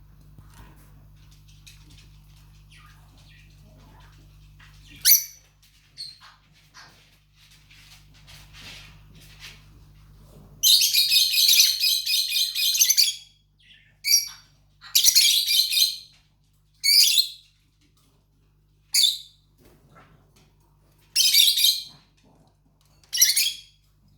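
Lovebird giving loud, harsh chirps and squawks in separate bursts. The longest run lasts a couple of seconds near the middle, followed by shorter calls every second or two.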